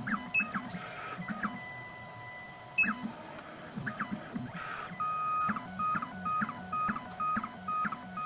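2M2 Tank CNC key cutting machine running its cutting programme: stepper motors whine in short pitched moves that glide and jump, and from about five seconds in they settle into a regular stop-start pattern about twice a second.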